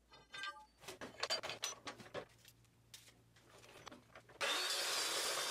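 Metal bar stock clinking and rattling, with a short metallic ring at first, as a rod is pulled out of a pile of steel bars and rebar. About four seconds in, a steady rushing noise starts abruptly.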